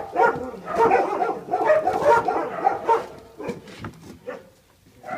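Puppies yapping and whining for about three seconds, then a few short knocks and clicks.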